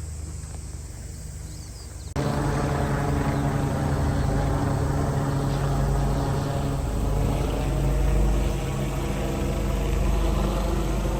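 A steady, loud engine or motor drone with a low, even pitch, cutting in abruptly about two seconds in.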